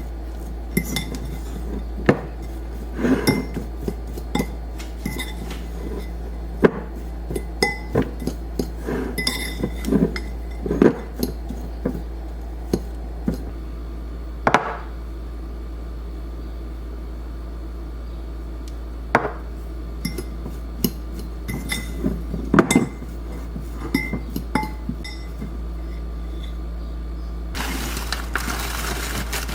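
Kitchen utensils and glass dishes clinking and knocking in an irregular series of sharp clinks, some briefly ringing, over a steady low hum. A steady, noisy scraping or rustling sound starts near the end.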